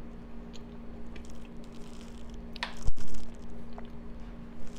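A person chewing a mouthful of soft baked potato with cheese and sauce, with small wet mouth sounds. A brief louder sound comes about three seconds in.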